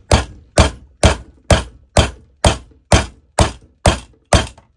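A 20-ounce framing hammer striking a half-cut, glued PVC drain pipe fitting. There are ten sharp thunks, about two a second, each with a short ring. The hammer blows test whether the glue joint will break.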